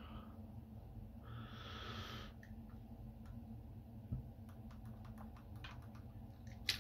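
Small plastic clicks and handling noises as a CR2032 coin cell is fitted into a Ford flip-key remote, with a brief rustle about a second in, a soft thump around four seconds in and a sharp click near the end. A steady low hum runs underneath.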